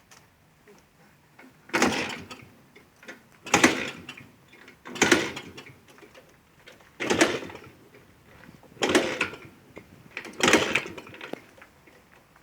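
Pannonia 250 two-stroke single being kick-started six times, one short burst every second and a half or so, the engine turning over without catching.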